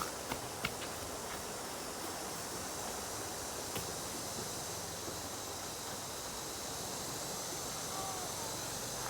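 Flowing water rushing steadily, with a few light clicks in the first second.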